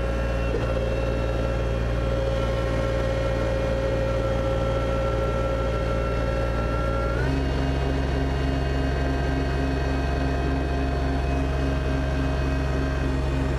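Kubota BX2680 compact tractor's three-cylinder diesel engine running steadily. About seven seconds in, the engine note steps up and stays there.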